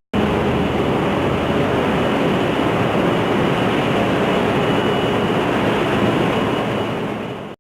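Loud, steady din of a ship's engine-room machinery running, with a faint high whine over it. It drops out for an instant just after the start, then fades near the end and cuts off.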